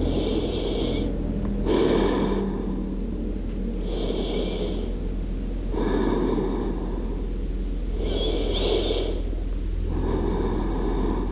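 A person breathing slowly and deeply in and out, about three full breaths, each inhale and exhale a soft rush of air lasting about a second, over a steady low hum.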